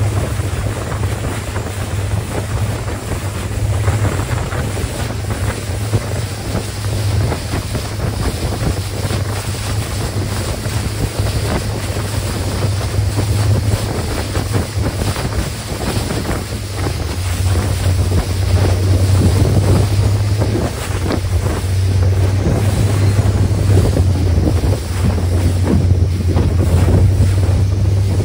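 Long-tail boat engine running steadily at speed, a strong low hum under the splash of the boat's spray and wind buffeting the microphone, a little louder in the second half.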